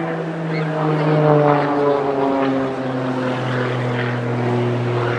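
Pitts aerobatic biplane's propeller engine droning in flight. Its note drops in pitch about two seconds in, then holds steady.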